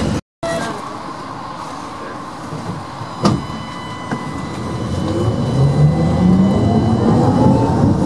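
Ganz tram heard from inside the car: steady running rumble with a single sharp click about three seconds in. From about five seconds on, the traction motor whine climbs steadily in pitch and gets louder as the tram picks up speed.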